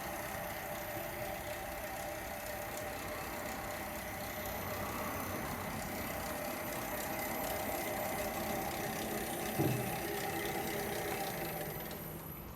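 Hitachi Koki CB22FA2 metal-cutting band saw running steadily, its motor and blade giving a constant whine, with a single short knock about ten seconds in. The sound fades away near the end.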